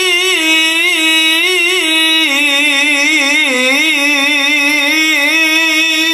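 A man's voice reciting the Quran in melodic tilawah style through a handheld microphone. He stretches one long melismatic phrase with wavering, ornamented pitch.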